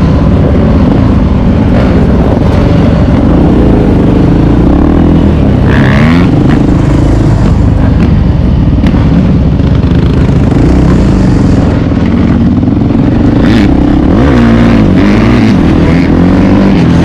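Suzuki LT-Z400 quad's single-cylinder four-stroke engine running loud under way, its pitch rising and falling as the throttle changes a couple of times, with wind noise over the microphone.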